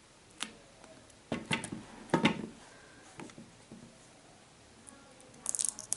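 Air Jordan 13 sneakers being handled, turned over and set down on a glass-topped stand: a few scattered short knocks and rubs, with a quick run of light ticks near the end.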